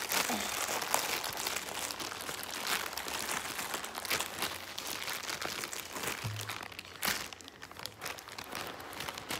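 Thin clear plastic bags crinkling as squishy toys are unwrapped from them, an irregular rustling and crackling with one sharper crackle about seven seconds in.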